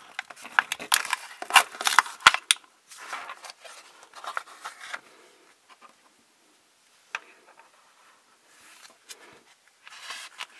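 Plastic and paper packaging crinkling, rustling and clicking as it is handled. The sounds are busiest for the first few seconds, then thin out to a few scattered clicks.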